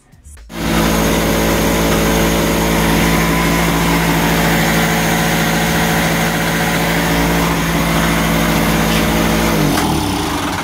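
Tiger TG1550 small portable generator's engine running steadily, powering the automatic changeover switch. Near the end its pitch drops.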